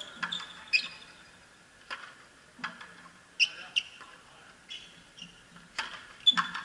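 A frontenis rally: about nine sharp cracks at uneven intervals as the hard rubber ball is struck by rackets and rebounds off the front wall. Between the hits, players' shoes give short high squeaks on the court floor.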